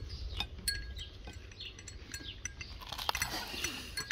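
Someone chewing, with faint scattered clicks and small clinks of a meal at an outdoor table, over a low rumble.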